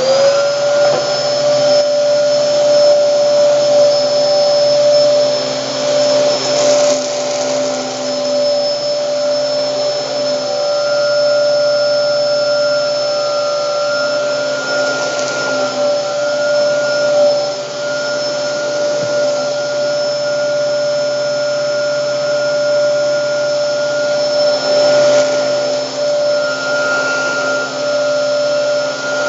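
Hoover Hurricane vacuum cleaner switched on: its motor whine climbs in pitch within half a second, then runs as a loud, steady high whine over a hiss of rushing air.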